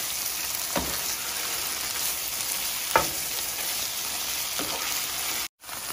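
Chicken pieces in red curry paste sizzling in a frying pan while a metal spoon stirs them, with three sharp clicks of the spoon against the pan. The sound cuts out for a moment near the end.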